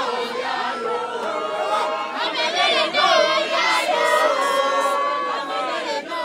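A crowd singing and chanting together, many voices at once, growing louder about three seconds in.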